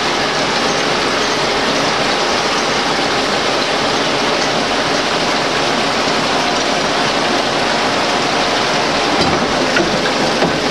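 Six-spindle Cone automatic lathe running under cut, a steady, dense mechanical noise with cutting oil splashing over the tooling.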